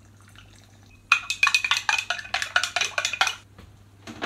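A spoon stirring hot water and brewing sugar in a clear jug, clinking rapidly against its sides at about eight clinks a second for a couple of seconds, dissolving the priming sugar.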